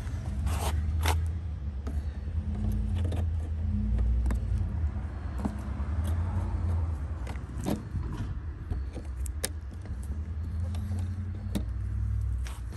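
Scattered sharp clicks and light clinks of small parts being handled, irregularly spaced, over a steady low rumble.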